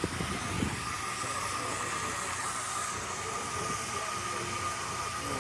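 Canadian Pacific 2816 steam locomotive standing at rest, hissing steam steadily, with a steady tone running through the hiss.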